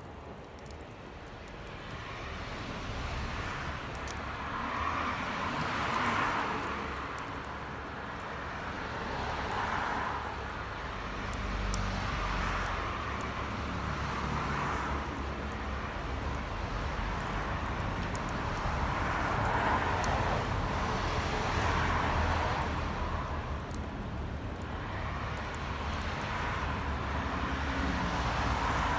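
Bonfire burning with sparse sharp crackles and pops, over a rushing noise that swells and fades every few seconds.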